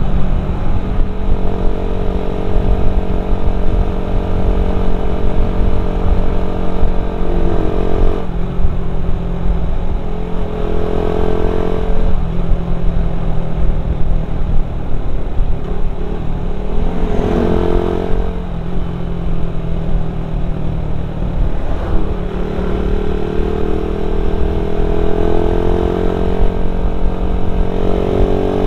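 Suzuki Satria FU single-cylinder motorcycle engine running through an aftermarket type-C header pipe and stock muffler while being ridden. Its note rises and falls several times with throttle changes and gear shifts, over a heavy low rumble.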